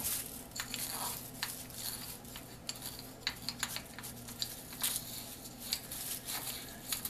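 A small stiff-bristle brush scrubbing a metal carburetor part clean of mineral spirits and grime: irregular scratching with many light clicks and clinks as brush and part knock together. A low steady hum runs underneath.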